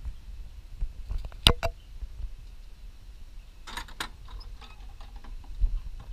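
A carved wooden double door being pushed open by hand, giving sharp wooden knocks and latch clicks: the loudest pair about one and a half seconds in, and a cluster around four seconds.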